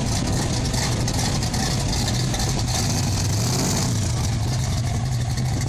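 Classic car engines running at low speed as the cars roll slowly past, a steady low rumble that rises a little in pitch about three to four seconds in, under a constant hiss.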